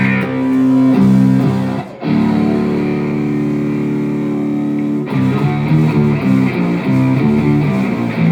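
Electric guitar played through an amplifier during a sound check: a few picked notes, a chord held for about three seconds, then a run of quicker notes.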